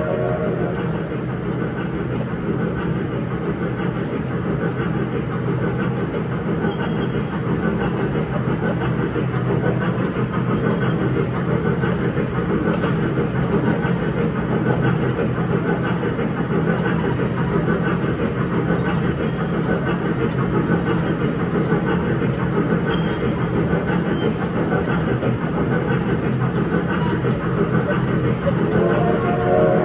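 Electric mall train running at a steady pace: a continuous low motor hum with rolling noise.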